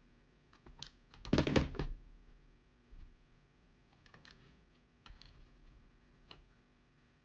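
Light clicks and taps of hard parts being handled, with a short dense burst of clattering about a second and a half in and a few scattered single clicks after.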